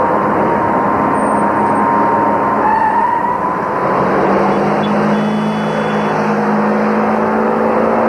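Busy city street traffic, with cars driving close past.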